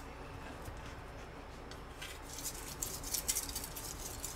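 Sashimi knife being stroked back and forth on a Shapton Kuromaku #5000 ceramic whetstone to finish the edge, a soft scraping rasp with each stroke. Faint at first, the strokes become clearer and more regular about halfway through.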